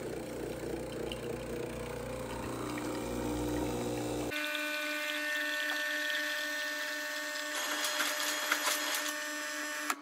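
Gevi espresso machine's pump buzzing steadily while liquid streams from the brew head into a glass mug, with some crackly sputtering near the end.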